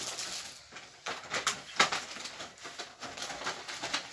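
Handling noise: rustling and light knocks as things are picked up and moved about, with one sharper knock a little under two seconds in.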